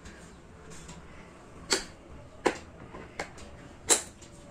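Plastic toy shape pieces clacking against a shape-stacking peg board as a toddler handles them: four sharp clicks, spaced under a second apart, the last the loudest.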